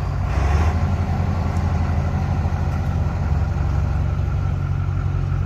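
Vehicle engine running steadily at low revs, briefly a little louder about half a second in.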